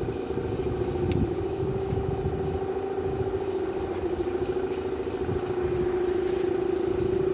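A machine running steadily: a constant mid-pitched whine over a low rumble, cutting in abruptly.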